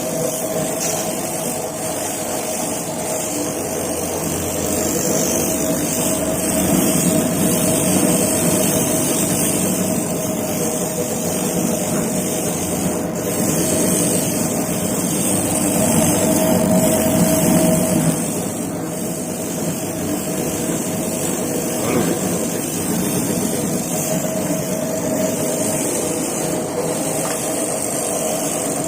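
Satay-skewer sharpening machine running steadily, its motor hum growing louder for stretches, with a few short clicks.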